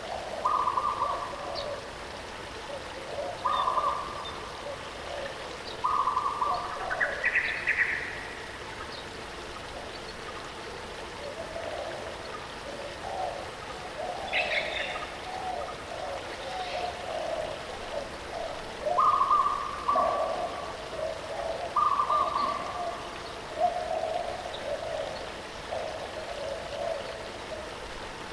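Birds calling over the steady rush of a waterfall. One bird repeats a short, flat whistled note every few seconds, with lower warbling calls in between and a rising call about a quarter of the way in.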